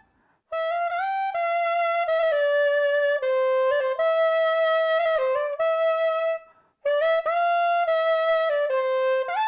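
Soprano saxophone playing a slow melody of long held notes, in two phrases with a brief breath break a little after six seconds in.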